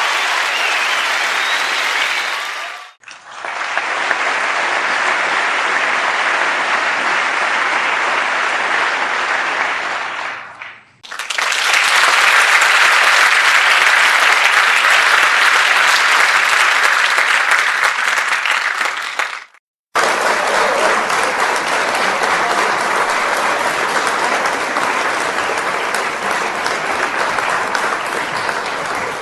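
Applause sound effects from a crowd, one recording after another, each cut off abruptly about 3, 11 and 19.5 seconds in; the third one, about 11 to 19.5 seconds in, is the loudest.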